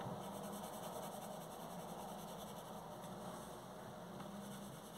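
A coloured pencil shading on paper, blending a gradient from dark to light. It is faint beneath a steady hiss.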